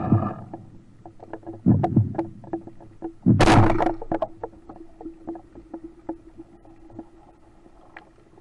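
Band-powered speargun fired underwater: a loud, harsh burst about three seconds in as the bands release and the shaft and line run out, after a duller thump a little earlier. Scattered sharp clicks and a steady low hum go on underneath and fade afterwards.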